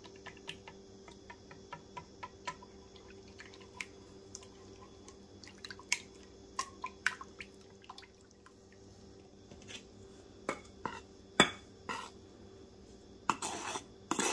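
Silicone-coated whisk beating eggs and melted butter in a wooden bowl: light, irregular clicks and wet taps as it knocks the bowl, a few louder ones in the second half. Near the end come two short scraping rustles, fitting a measuring cup scooped into flour.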